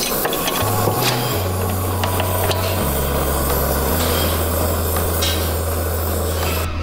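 Background music with long held bass notes that change pitch every second or so, under a dense hissing top, with a few faint clicks.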